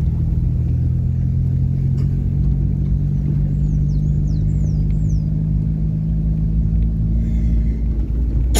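Steady low rumble of a car on the move, with a few short high chirps in the middle.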